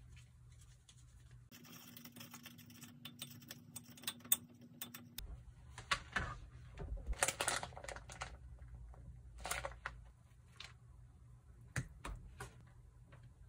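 Quiet kitchen handling noises: a run of light clicks and taps, then scraping and knocking as a plastic cutting board is laid on the counter, with a few sharp taps later as a salmon fillet and knife are set on the board.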